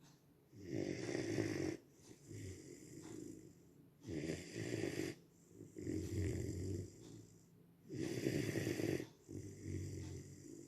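Rhodesian Ridgeback puppy snoring in its sleep, the snores coming in an even rhythm about every four seconds, three loud ones, each followed by a softer breath.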